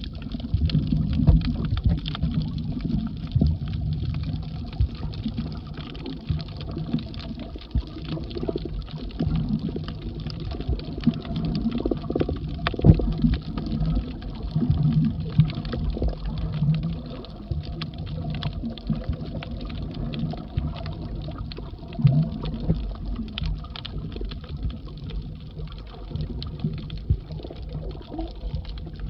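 Muffled underwater rumble of water moving around a submerged camera, uneven and mostly low-pitched, with scattered faint clicks.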